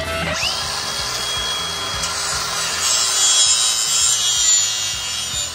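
Cordless angle grinder spinning up about a third of a second in, running with a steady high whine, then grinding steel with a harsh hiss that grows louder from about three seconds in; it is taking the finish off the steel fence to prep it for welding.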